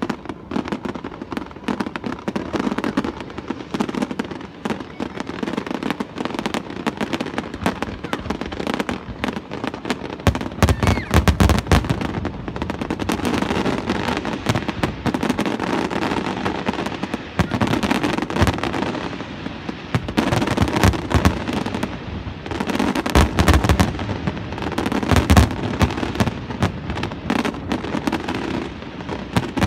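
Fireworks display: a dense, continuous crackle of bursting shells, with deep booms coming in clusters from about a third of the way in.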